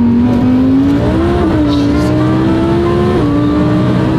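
Twin-turbo Audi R8's engine pulling under acceleration, heard from inside the cabin. Its pitch climbs steadily and drops suddenly twice, about a second and a half in and about three seconds in.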